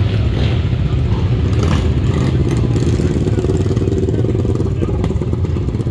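Motorcycle engines running, a loud, steady low-pitched sound with no clear rise or fall.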